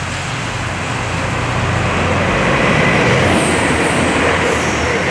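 A train passing close by in the tunnel: a loud rushing rumble that builds over the first few seconds and then holds.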